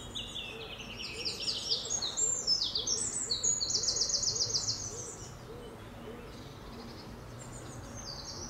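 A wild songbird singing a long, rapid song of high trilled notes for about five seconds, with the song starting up again briefly near the end. Under it, a faint low hooting note repeats about twice a second.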